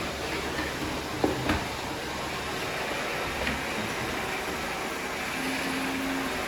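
Robot vacuum cleaners running with a steady whir, with two brief knocks about a second and a half in.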